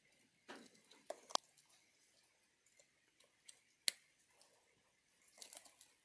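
Plastic wiring connectors and a twist-throttle harness being handled: a soft rustle, then a few small sharp clicks, the clearest two a little over a second in and near four seconds.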